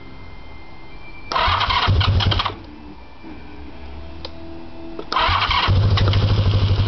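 1984 Honda VF1000F's V4 engine turning over on the electric starter in two goes: a short crank of about a second near the start, then a longer one of nearly three seconds from about five seconds in. It does not catch. This is the first start attempt after sixteen years laid up and a long rebuild.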